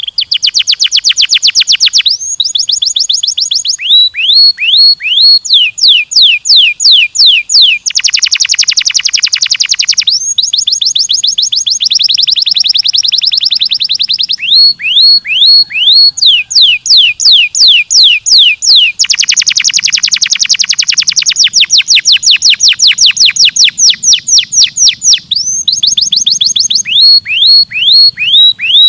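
Domestic canary singing a long, loud song made of rapid trills: fast runs of repeated falling whistled notes, the phrase changing every second or two, with denser rolling passages between.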